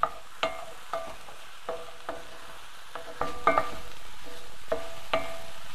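Wooden spoon stirring sautéing mushrooms and shallots in a cast iron skillet over a steady sizzle. The spoon knocks against the pan about a dozen times, irregularly, and each knock rings briefly. The sizzle gets a little louder about three seconds in.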